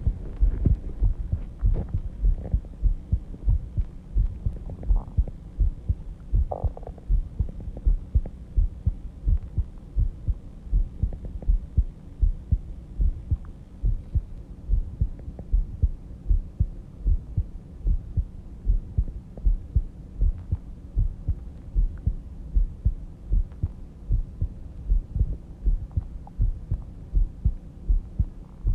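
A person's heartbeat during sleep: low, regular thumps at a slow resting rate of about 70 beats a minute, over a steady low hum.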